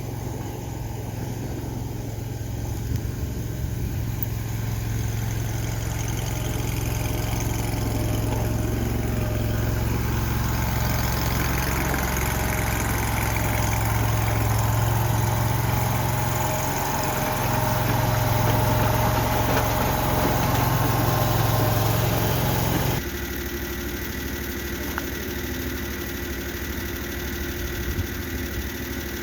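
Mini skid steer engine running steadily. It grows louder from about ten seconds in, then drops suddenly to a lower, steadier hum near the end.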